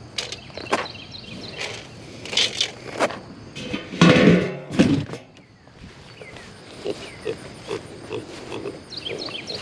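Young pig grunting and feeding in short bursts, with a louder grunt about four seconds in.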